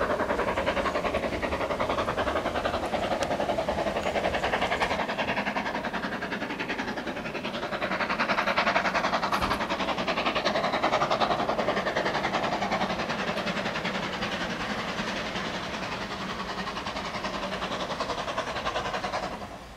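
Train running along the track, its wheels rattling and rushing over the rails in a continuous loud din that swells in the middle and cuts off suddenly near the end.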